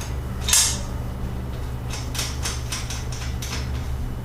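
Metal clinks and a run of short clicks from a wrench working a bicycle wheel's axle nut loose, over a steady low hum.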